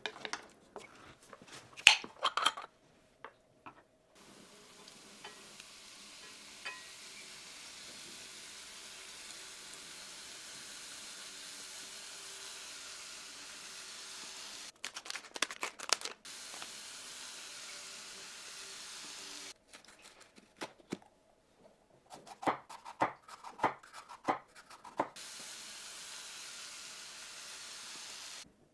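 Food sizzling in a hot frying pan, a steady hiss that starts and stops abruptly several times. Between the stretches of sizzling come clusters of sharp clicks and knocks of utensils against the pan and dishes.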